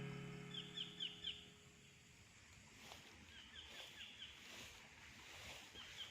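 Faint bird chirps in quick groups of three or four short notes, repeated every few seconds. Background music fades out in the first second.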